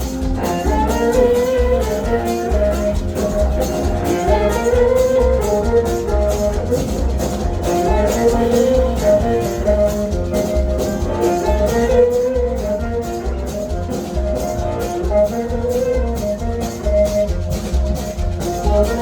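Live blues band playing: guitar over drums and a heavy, pulsing bass, with a melodic phrase repeating about every four seconds.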